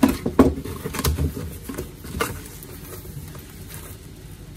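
A cardboard shipping box being pulled open and handled by hand, with a few sharp knocks and scrapes in the first couple of seconds, then quieter handling.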